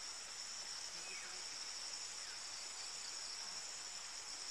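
Steady high-pitched chorus of field insects trilling without a break.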